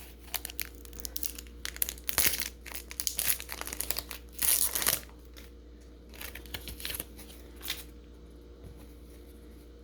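A Pokémon trading card booster pack's foil wrapper being crinkled and torn open: a dense run of crackling for about five seconds, followed by a few lighter rustles.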